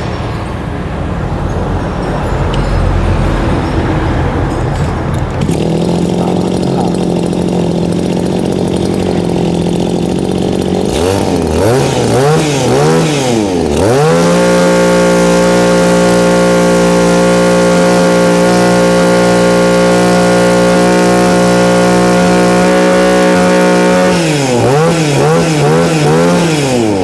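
Shindaiwa two-stroke brush cutter engine running: unsteady at first, then idling steadily from about five seconds in. It is blipped a few times, held at full throttle for about ten seconds, then eased back with a few more blips near the end.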